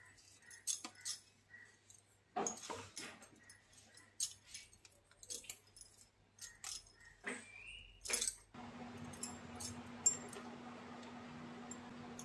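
Fingers pressing the seeds out of raw bitter gourd slices on a plastic plate: irregular sharp clicks and crisp snaps. About two-thirds of the way through a steady low hum and hiss set in, with a few lighter clicks as the cut slices are handled.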